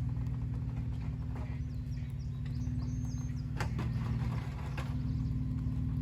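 Jeep engine running at low revs while crawling a trail, a steady low drone whose pitch shifts slightly a few times, with a couple of sharp knocks about three and a half seconds in.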